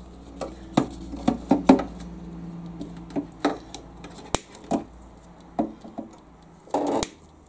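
Side cutters snipping through thin red and black wires: a string of separate sharp clicks, the sharpest a little past halfway, with small handling noises as the cut wires are moved about.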